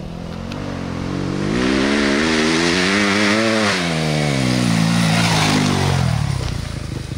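2021 Yamaha YZ250F dirt bike, a 250 cc four-stroke single, riding up a dirt trail and passing close by. The engine note grows louder and rises in pitch as it approaches, then drops in pitch and fades after it goes past.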